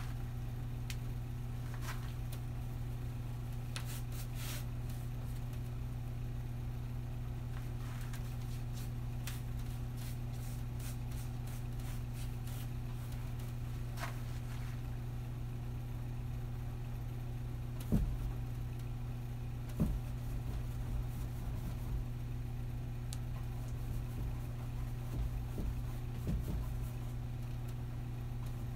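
Steady low hum with scattered faint clicks, and two soft knocks about eighteen and twenty seconds in.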